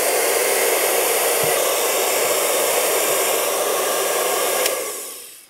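Handheld hot-air blower running with a steady rush of air as it heats adhesive grip tape on a pistol frame. It is switched off with a click near the end, and the fan winds down.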